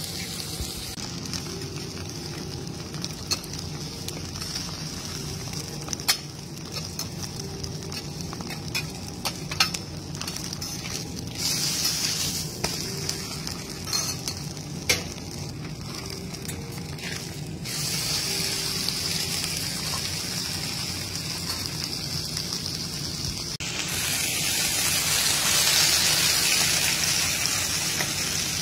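Thick beef steaks sizzling on a teppanyaki griddle, with a few sharp pops of spitting fat. The sizzle shifts abruptly several times from shot to shot and is loudest near the end.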